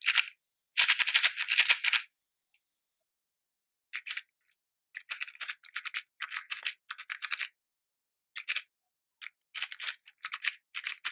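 YJ MGC 4x4 speed cube, freshly lubed, being turned quickly through a parity algorithm: runs of plastic clicking and rattling as the layers turn, a long run for the first two seconds, a pause, then many short bursts of turns.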